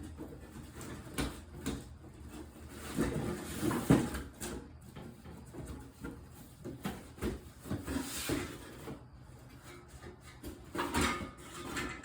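Handling noises: scattered knocks, clicks and scrapes, with a couple of longer rustling stretches, as parts are picked up, moved and set down while a replacement recoil starter is sorted out.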